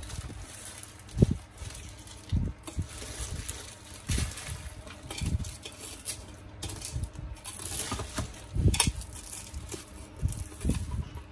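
Handling noise: a plastic bag crinkling and crab legs knocking and thudding as they are pushed by hand into a stainless steel pot of shrimp and corn, with irregular soft thumps throughout.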